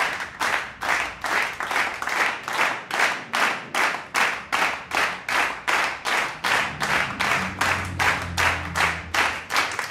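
Steady rhythmic hand claps, about three a second. A low note sounds beneath them in the second half.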